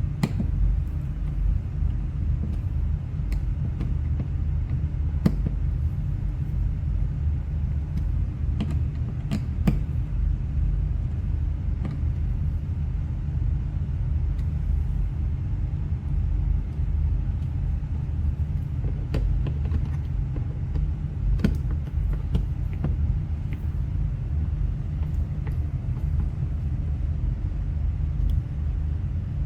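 A QuietCool whole-house fan running on high speed, a steady low rumble. Scattered small clicks and taps come from a screwdriver and the switch faceplate screws being worked.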